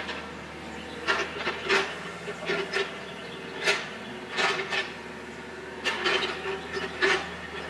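Kubota KX91-2 mini excavator's diesel engine running steadily while its bucket drags through pit gravel and dirt, giving repeated short scrapes and squeals about once a second or so.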